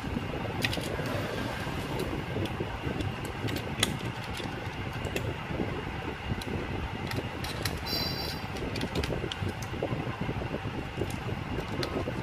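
Light, scattered clicks and taps of small screws and a screwdriver against a DVR's metal case as a hard disk is fastened in, over a steady background hum. A brief high chirp sounds about eight seconds in.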